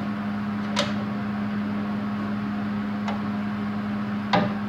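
Steady machine hum, broken by three sharp metal clicks of a hand tool against the steel frame rail; the last, near the end, is the loudest.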